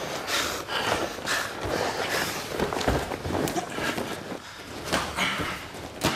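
MMA sparring in a gym: hard breathing, strikes landing and feet moving on the mat, coming in quick, irregular bursts.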